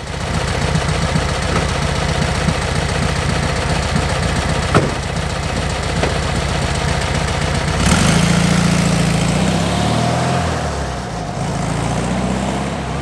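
1966 Volkswagen Karmann Ghia 1300's air-cooled flat-four engine idling steadily, then about eight seconds in it revs up as the car pulls away, the engine note rising and falling as it drives off.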